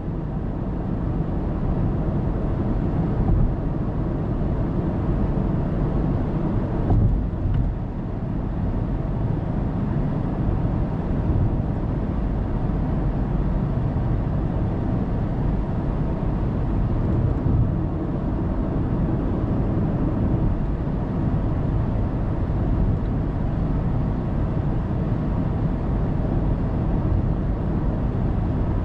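Steady low road and tyre noise of a car cruising on an expressway, picked up by a dashcam microphone inside the cabin. There are a couple of brief thumps, about three and seven seconds in.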